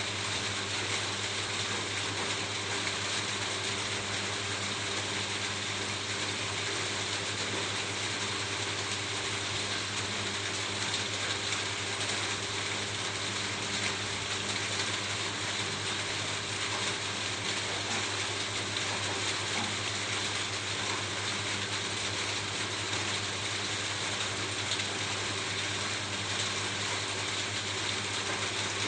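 Steady rain falling on a roof, a dense, even patter of drops that holds the same level throughout.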